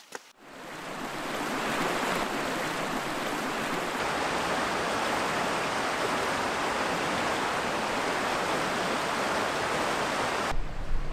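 Shallow river rapids: water rushing steadily over stones. It fades in over the first second or two and breaks off suddenly near the end.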